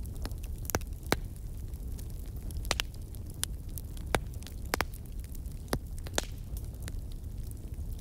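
Crackling fire: irregular sharp pops and snaps, a few a second, over a low steady rumble.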